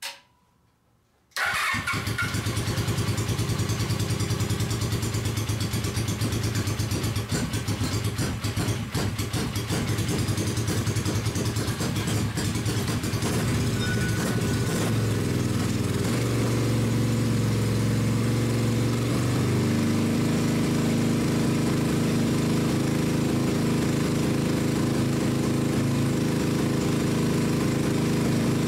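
Suzuki GS500 parallel-twin motorcycle engine in a dune buggy starting abruptly about a second and a half in, then running steadily, its note shifting about twenty seconds in. It is being run to warm it up to operating temperature for a warm compression test.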